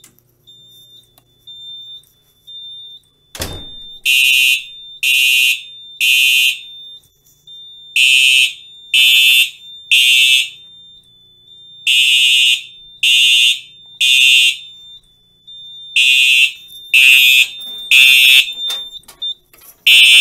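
Simplex SmartSync electronic horn strobes sounding in sync in the temporal-three evacuation pattern: about four groups of three half-second blasts, with a longer gap after each group. This is the fire alarm set off by pulling the explosion-proof pull station. A sharp knock comes a few seconds in, just before the blasts begin, and a thin steady high tone runs underneath.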